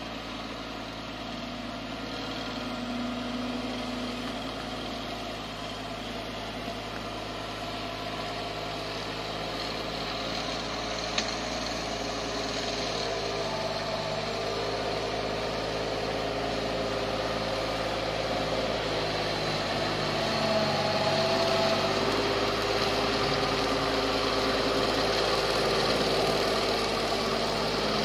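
Engine of a Kubota grass-cutting machine running steadily and growing gradually louder, with one sharp click about eleven seconds in.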